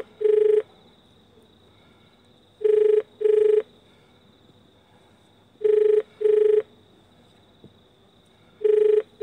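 Telephone ringing tone played through a station emergency help point's intercom speaker: short double rings of a steady low tone about every three seconds, with a faint steady high whine, while the call waits to be answered.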